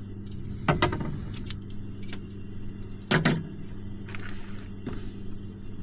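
Steady low hum under a few knocks and clatters. The loudest knocks come about a second in and just past three seconds, with lighter clicks between.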